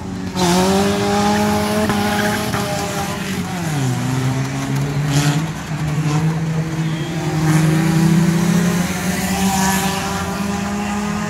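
Engines of a pack of banger-racing cars running around the track. The engine note drops sharply about four seconds in as they back off, then climbs again.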